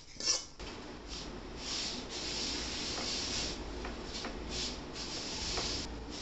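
Dry rustling of cumin seeds being raked and spread by hand over a woven plastic sack, swelling and fading in several waves with a few light clicks. A short scrape of a steel ladle in a kadai of cumin comes right at the start.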